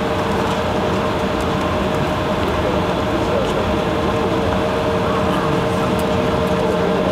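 Steady cabin noise of a jet airliner taxiing at low engine power, heard from inside the cabin: an even rumble and rush with two steady whining tones over it.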